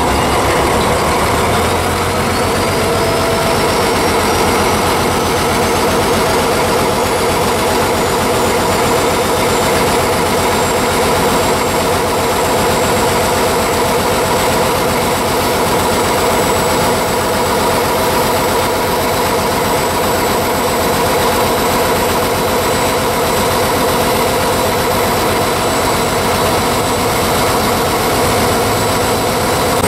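ČKD T448p diesel shunting locomotive's six-cylinder diesel engine running steadily as the locomotive moves, heard close beside the engine-room louvres. A high whine climbs in pitch over the first few seconds and then holds.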